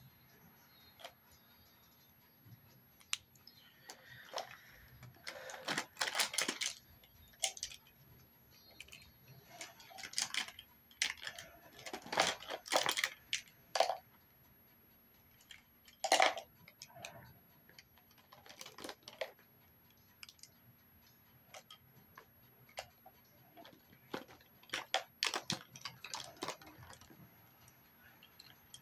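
Small makeup items and containers being handled and rummaged through: irregular clicks, clacks and rustles that come in several clusters.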